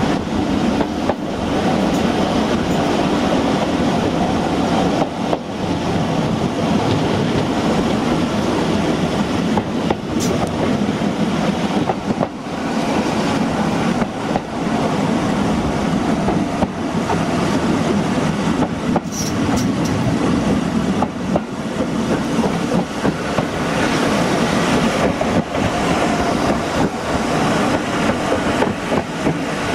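Heritage railway train running along the track, heard from its rear cab: a steady rumble of wheels on rail with scattered clicks and knocks from the running gear.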